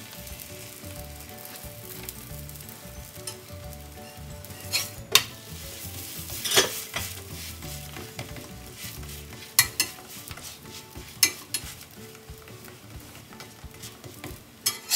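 Kerala parotta sizzling steadily as it fries on a hot tawa in the oil worked into its own dough. About half a dozen sharp clicks and scrapes come from a metal slotted spatula against the griddle.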